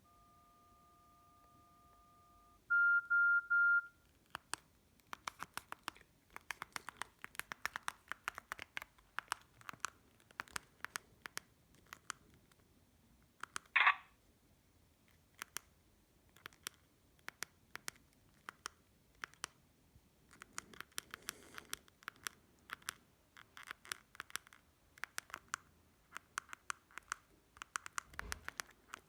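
Doro 1360 mobile phone keypad: a faint steady two-note key tone, then three short beeps, then a long run of button clicks, many with a short key beep, as the keys are pressed again and again.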